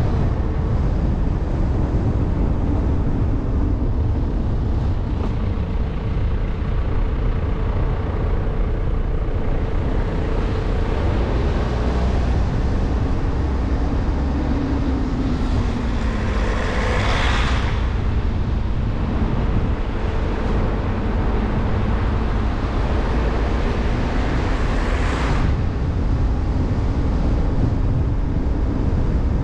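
Jeep driving along a road: steady low engine and tyre rumble with a faint shifting engine hum, and two brief swells of hissing noise in the second half.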